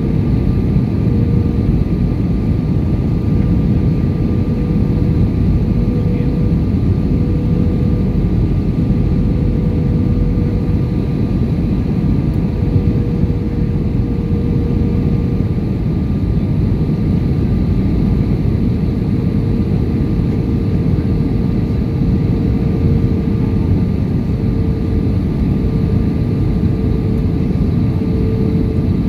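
Steady cabin noise of an Airbus A320-200 descending on approach: rushing airflow and jet engine noise heard from a window seat, with a steady hum running through it.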